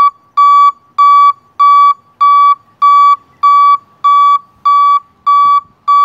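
Vehicle backup alarm beeping: a steady train of loud, single-pitched beeps, about three every two seconds, each lasting about a third of a second.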